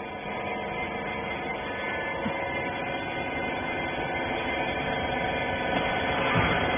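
Baler machine running with a steady hum made of several held tones that builds slightly toward the end.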